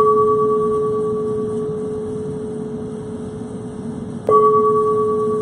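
Standing singing bowl struck with a wooden striker, ringing with a steady low tone and a fainter higher overtone that slowly fade; struck again about four seconds in.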